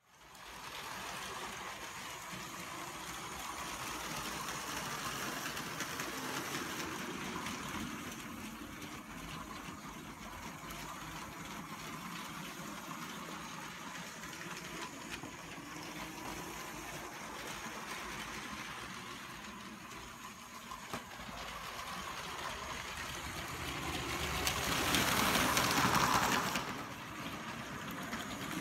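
A motorised Lego train running on plastic track: a steady electric motor whir with wheel rattle, growing louder about three quarters of the way through as it passes close, then falling back.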